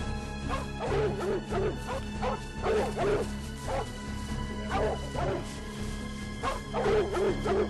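Background music with held steady tones, over which a wild hog grunts in short, irregular calls several times.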